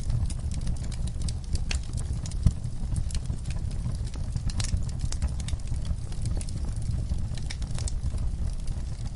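Burning logs in a fireplace, crackling with irregular sharp pops over a steady low rumble of flame, with one louder pop about two and a half seconds in.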